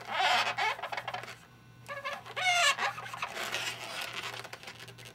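Inflated latex modelling balloons squeaking as they are rubbed and handled. A short scratchy squeaking comes at the start, and a clear pitched squeak that rises and falls comes about two and a half seconds in.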